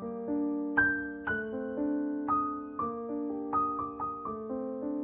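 Soft solo piano music: a slow melody of single struck notes, each fading away, over held lower notes.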